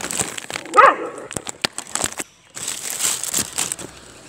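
A dog gives one short whine about a second in, amid the crinkling and rustling of a plastic bag of dog food being handled.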